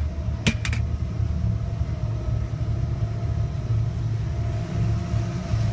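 Steady low rumble with a faint steady hum, broken by two sharp clicks about half a second in.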